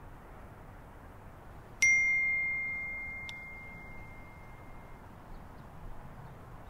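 A single bright ding from a phone notification chime, which rings and fades away over about three seconds, with a faint click about a second and a half after it, over steady low background hiss.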